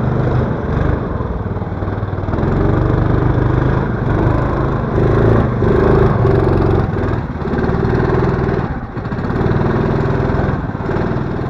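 Taiga snowmobile's Lifan 20 engine running under load as the sled ploughs through deep snow, its note rising and falling with the throttle, with several brief drops in power.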